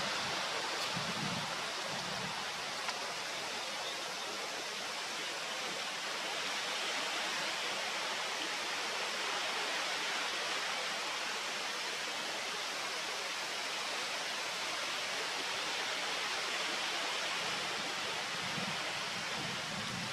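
Steady rushing noise of water, with a few soft low thumps about a second in and again near the end.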